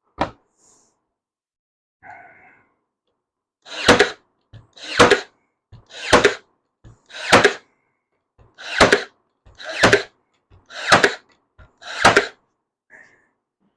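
Cordless brad nailer firing eight times in a steady run, about one shot a second, each shot a sharp crack preceded by a faint click, as pickets are nailed together.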